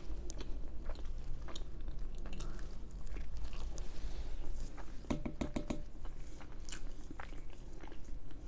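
Close-miked mouth sounds of someone chewing a mouthful of naan bread and curry: moist chewing and smacking with small crackles, and a quick cluster of sharper crunches about five seconds in.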